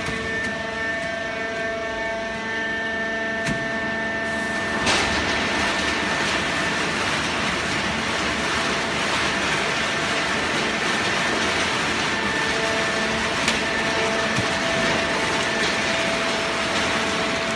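Hydraulic paper scrap baler running: a steady machine hum with several held tones. About five seconds in, a louder even rushing noise joins it and carries on.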